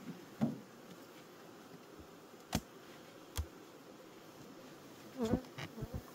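Honeybees buzzing around an opened hive, with several sharp knocks and clunks of wooden hive boxes being handled. The loudest knock comes about half a second in and a cluster comes near the end as a box full of bees is lifted off.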